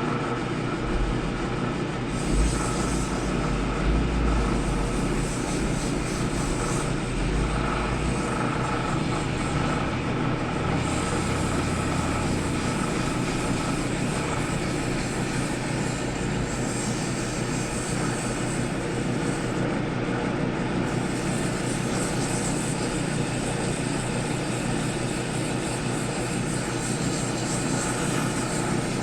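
Woodturning lathe running steadily, a continuous motor and spinning noise with some low rumble in the first half.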